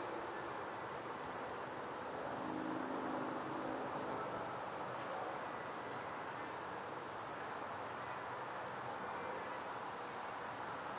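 Outdoor ambience: insects trilling faintly and steadily at a high pitch over a steady hiss. A low hum comes in about two seconds in and fades out about two seconds later.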